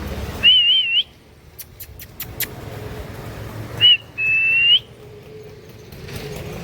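A person whistling to call dogs: first a short warbling whistle, then a quick chirp and a longer held whistle that rises at its end. A few sharp clicks sound between the whistles.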